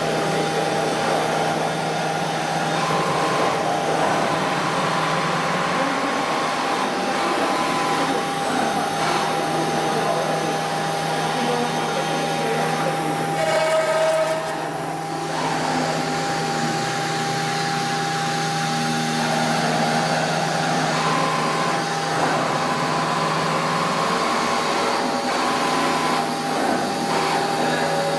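Large CNC router running: a steady machine whine over a constant hum and motor noise, with a brief change in the sound about halfway through.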